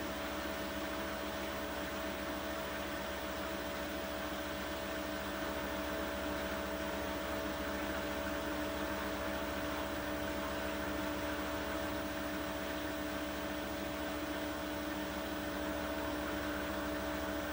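Beko WTK104121W front-loading washing machine on its final spin, the drum turning at a steady speed with a steady motor whine over a rushing hiss.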